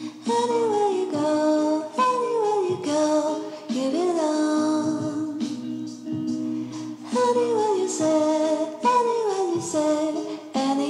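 Background music with a woman's voice singing gliding, falling phrases over sustained instrumental notes.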